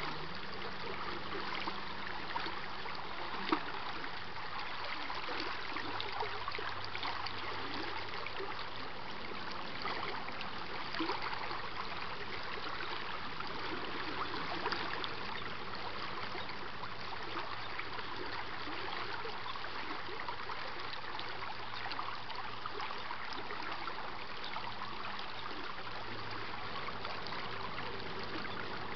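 Flowing stream water, a steady rushing trickle, with a sharp click about three and a half seconds in.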